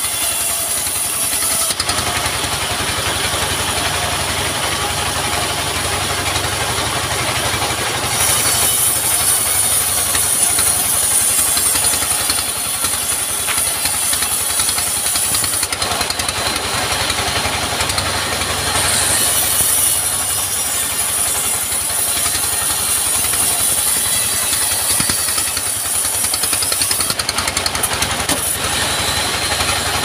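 Engine-driven sawmill band saw running steadily while its blade rips a log lengthwise. The sound grows louder and quieter several times.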